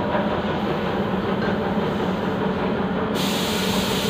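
Paint spray booth's air system running with a steady low rumble and hum. About three seconds in, a steady broad hiss starts up.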